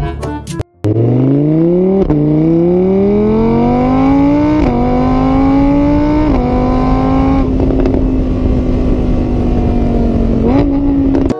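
Car engine accelerating hard through the gears. It starts about a second in, its pitch climbing and dropping back at each of three shifts, then holds steady before a short rise near the end, where it cuts off.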